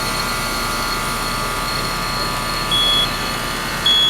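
Coleman heat pump outdoor unit running steadily, its compressor and condenser fan powered through a freshly fitted 30+5 dual run capacitor. Two short high electronic beeps come near the end.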